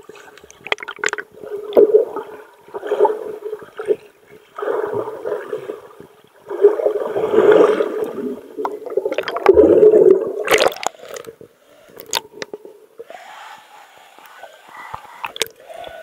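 Water sloshing and gurgling in irregular bursts, with most of the sound low and dull and little on top; the loudest bursts come about halfway through.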